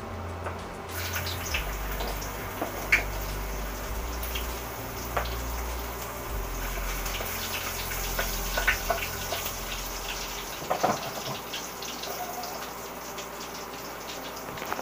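Hot cooking oil sizzling in a wok, a steady hiss with scattered crackles and pops that sets in about a second in.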